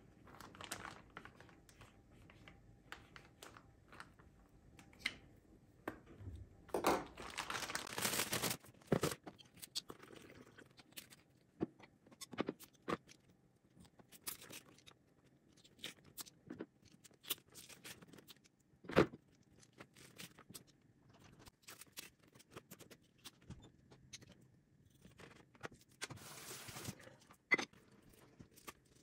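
Objects being handled: scattered clicks and scrapes, a longer rustling stretch about seven seconds in and another near the end, and one sharp knock midway.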